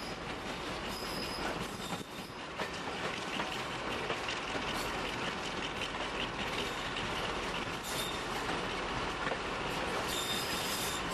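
Class 35 Hymek diesel-hydraulic locomotive D7076 running slowly alongside a platform, heard from beside its cab: a steady mix of engine and wheels on the rails, with brief high wheel squeals a few times.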